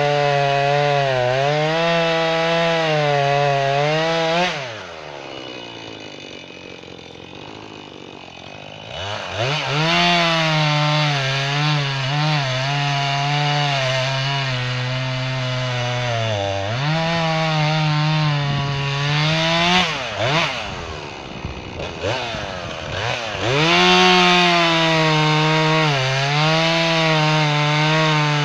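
Jonsered 2240 two-stroke chainsaw cutting red oak at full throttle, its pitch wavering as the chain loads up in the wood. It drops back to idle about four seconds in, revs up again near nine seconds, dips briefly twice more and climbs back near the end. It runs a hastily hand-filed, somewhat damaged chain that is not cutting as well as it could.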